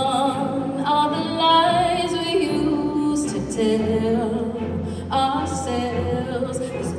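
A woman sings long, wavering notes live, backed by a symphony orchestra. A low bass note is held through the middle of the passage, and the voice pauses briefly twice between phrases.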